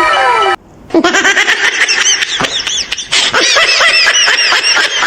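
Comedy sound effects: a series of overlapping falling, whistle-like tones that cuts off about half a second in. After a short gap comes a high-pitched cartoon-style laugh with quick chirping rises and falls.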